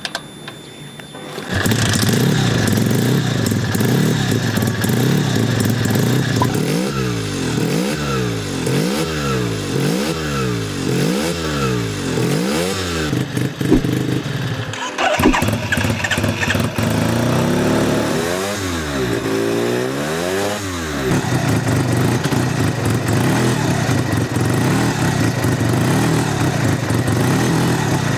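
Suzuki RE5's single-rotor Wankel rotary engine starting about a second and a half in and running, then blipped in a quick string of about six revs. After a short break with a couple of clicks, it is revved three or four more times and settles back to running.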